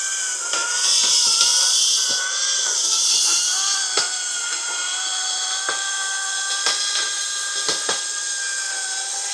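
Makita cordless battery chainsaw running as it cuts through a fallen tree, a steady wavering whine with a hiss of cutting in the first few seconds. Several sharp cracks of the timber giving way come from about four seconds in.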